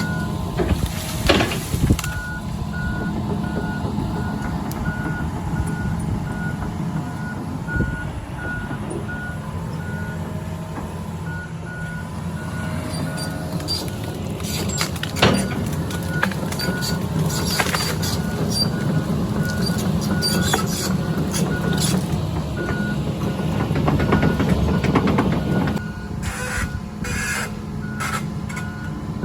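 John Deere excavator's engine running while its travel alarm gives a steady repeating beep. A few sharp cracks, the loudest about a second in and again about fifteen seconds in.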